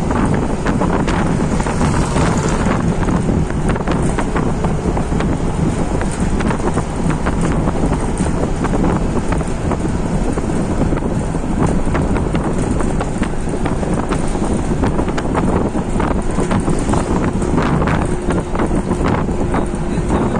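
Wind rushing and buffeting over the microphone of a moving vehicle, with steady road and engine rumble beneath.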